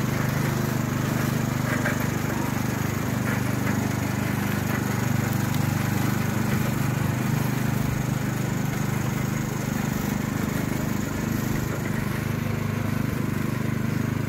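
Briggs & Stratton engine of a custom garden tractor running steadily at an even speed as the tractor drives along towing a wagon.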